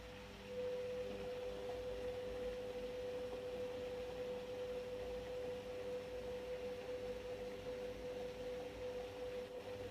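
Beko washing machine giving out a steady, even tone that starts abruptly about half a second in and cuts off near the end.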